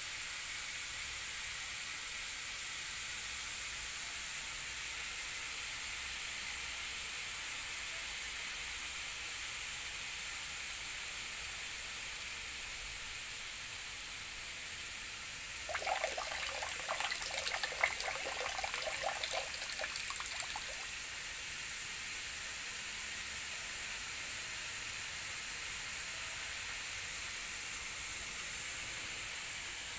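Steady hiss throughout, with about five seconds of splashing, clattering water a little past the middle as dried tiny shrimp (rebon) are rinsed by hand in a metal bowl.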